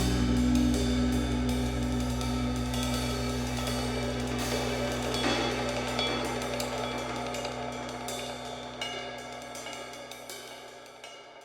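Background music with drums and ringing cymbals, fading out steadily.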